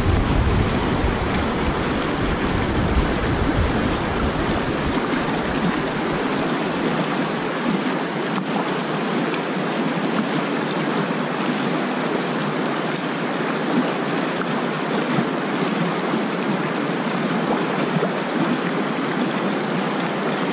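Water rushing steadily over and below a concrete spillway, with shallow fast flow churning across the apron. A low rumble underneath dies away about five seconds in.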